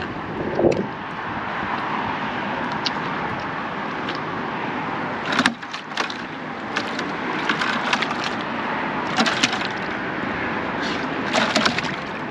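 Steady noise of passing road traffic, broken a few times by short knocks and splashes of live fish being handled in a bucket of water.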